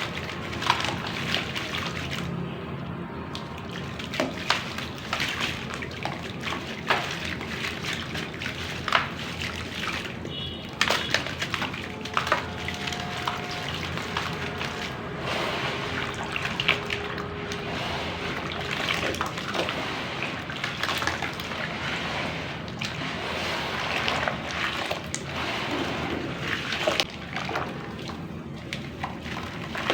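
Crunchy dry black clay crumbling into water: steady wet sloshing and trickling with many sharp crackles and cracks as pieces break and drop in.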